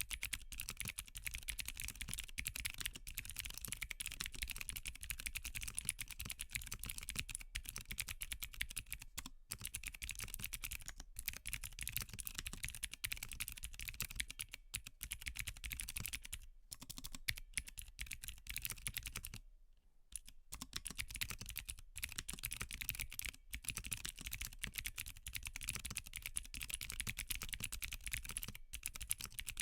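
Continuous fast typing on a Qwertykeys Neo80 mechanical keyboard with clicky Cherry MX2A Blue switches on an aluminium plate with no foam. There are a few brief pauses, the longest about two-thirds of the way through.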